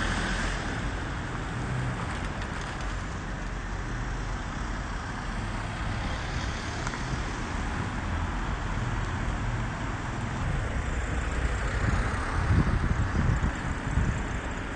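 Road traffic: cars driving past close by, a steady rumble of engines and tyres on the street.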